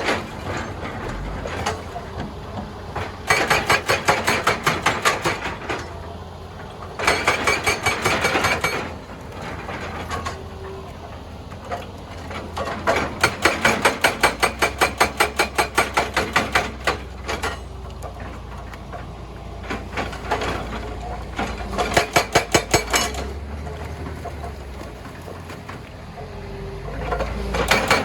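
Hydraulic rock breaker on a Hitachi EX200 excavator hammering rock in five bursts of rapid blows, about seven or eight a second, each lasting one to five seconds. The excavator's diesel engine runs steadily underneath.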